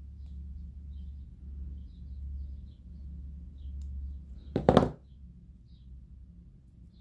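Quiet handling of aluminium craft wire and jewelry pliers on a table: faint small ticks over a low steady hum, with one short, loud clatter about two-thirds of the way in as the pliers are picked up.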